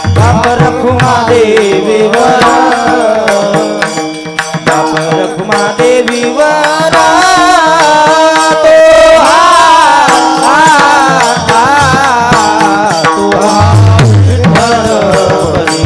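Devotional kirtan music: an ornamented, wavering melody line, likely a singing voice, over steady held accompanying notes and drum beats. The drum pulses grow stronger near the end.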